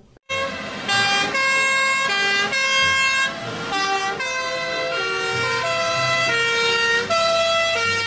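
Two-tone sirens of German fire engines, the pitch jumping back and forth between two notes, with more than one siren sounding at once. They start a moment in, after a brief silence.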